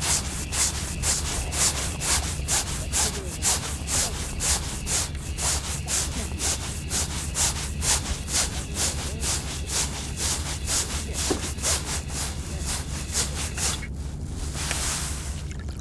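Fishing reel being cranked steadily to bring up a hooked fish: a rhythmic rasp about three times a second. The cranking stops about fourteen seconds in, and a short hiss follows.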